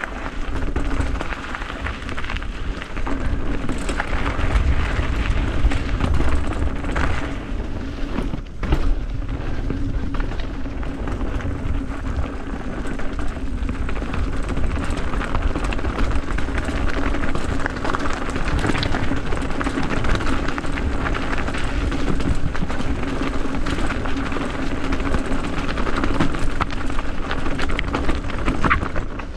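A motor vehicle running steadily, its engine giving a constant drone with a low rumble under a rough, rattling noise. The sound drops briefly about eight seconds in.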